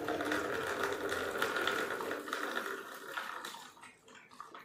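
Milk poured into a plastic bowl while several puppies lap it up, a fast wet clicking over the splash of the stream. The sound grows much quieter after about three seconds, once the pour stops.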